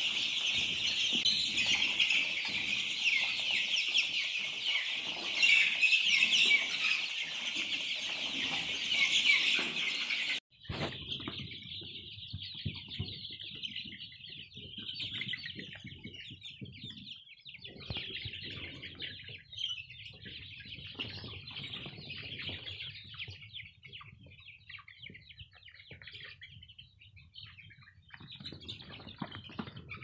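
A large flock of young chicks peeping together in a continuous, dense chorus of high cheeps. About ten seconds in it cuts off sharply to a quieter, thinner chorus of peeping from older chicks.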